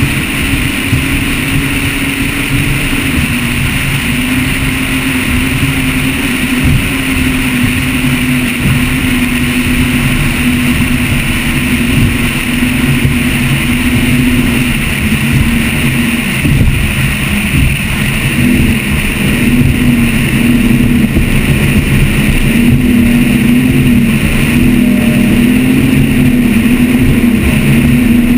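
Motion Powerboats 43GT catamaran's engines running steadily under way, a loud droning note that wavers slightly in pitch, over a constant rush of wind and water past the hull.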